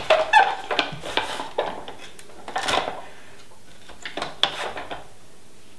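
Plastic parts of a hand-crank vegetable spiralizer clicking and knocking as the machine and the cut zucchini are handled: scattered, irregular sharp clicks, with a quieter stretch just past the middle.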